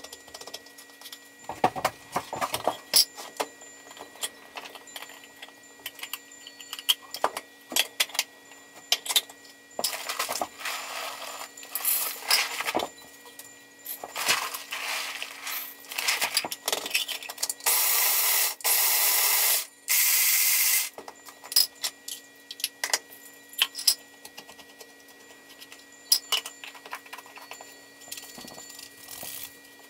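A metal utensil clinking and scraping in a tin can as tuna is worked out of it, in many short, irregular knocks. About two-thirds of the way through come two loud, steady rushing noises, one about two seconds long and one about one second long.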